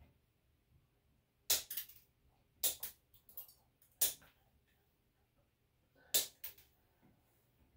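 Dog nail clippers snapping through a Cocker Spaniel's toenails: about five sharp snaps, irregularly spaced a second or more apart.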